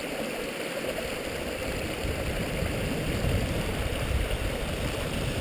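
Stream water rushing steadily, with a low rumble that grows stronger about two seconds in.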